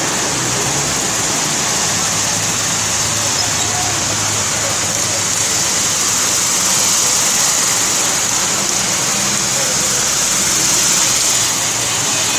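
Heavy rain pouring steadily while cars and motorbikes drive through floodwater on the road, their tyres splashing and throwing up spray over the low running of their engines. The splashing swells about halfway through and again near the end.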